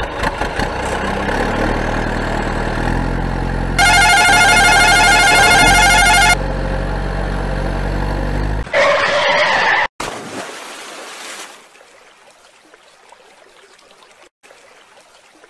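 Vehicle engine running steadily, with a loud warbling horn blast lasting about two and a half seconds partway through. The engine cuts off near the middle, a brief different sound follows, and then there is only faint noise.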